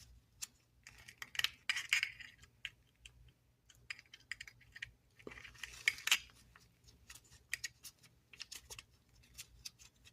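Irregular small metallic clicks and short scrapes of an Allen wrench turning a screw in the metal case and base of a Zippo Handilite table lighter, with busier scraping bursts about a second and a half in and again around six seconds in.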